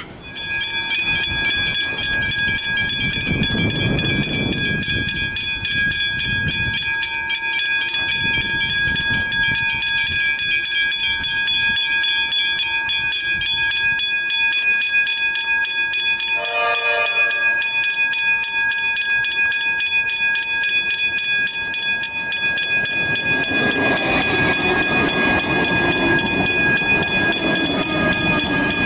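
Westinghouse Hybrid level-crossing bell starts suddenly and rings rapidly and continuously, a fast stream of strikes with several steady ringing tones. In the last few seconds the rumble of an approaching train builds up under the bell.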